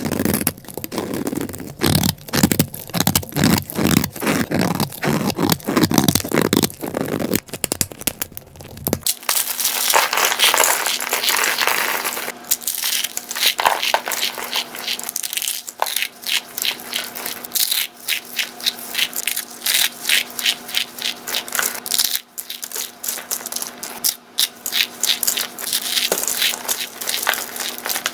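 Dry, brittle material being crushed and cut, making dense crunching and scraping. About a third of the way in, the sound changes to sharper, separate crisp cracks and crackles over a faint steady hum.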